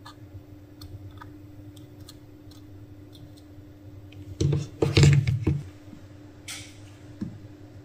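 Clatter and knocks of a small DC motor and its plastic gearbox being handled and set down on a rubber work mat, loudest about halfway through, over a steady low hum. A short hiss follows.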